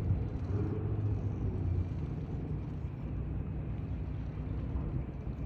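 Low, steady rumble of a large motor yacht's diesel engines as it leaves harbour.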